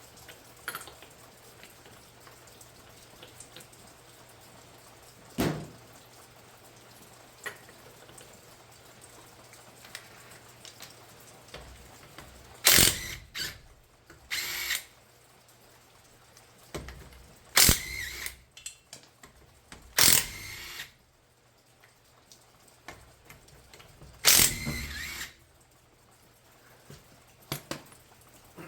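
Handheld power tool run in short bursts of half a second to a second, about seven times, spinning lug nuts on a car wheel. A single sharp knock comes about five seconds in.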